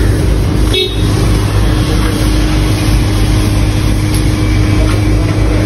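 A vehicle engine idling: a steady low rumble with a constant hum over it.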